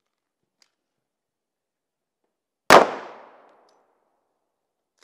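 A single pistol shot about halfway through, very loud and sudden, with its echo trailing off over most of a second.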